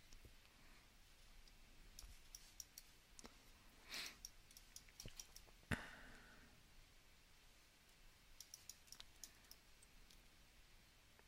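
Faint computer mouse and keyboard clicks in scattered clusters, with one sharper, louder click a little before six seconds in and a brief soft hiss about four seconds in.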